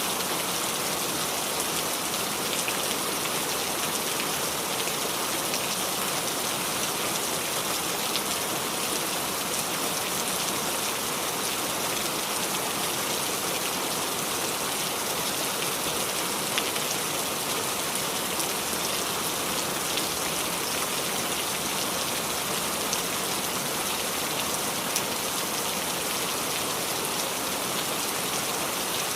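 Steady rain falling and dripping onto the leaves of a small tree, an even hiss flecked with fine drop ticks.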